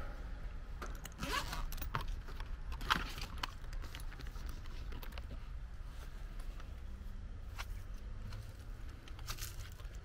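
Scattered clicks, knocks and rustles of tools and test leads being handled, over a low steady rumble.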